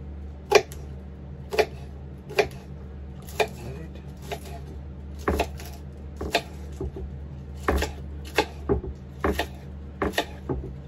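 Kitchen knife chopping wild onions on a bamboo cutting board: single sharp knocks of the blade through onion into the board, at uneven intervals of about one a second, coming closer together in the second half.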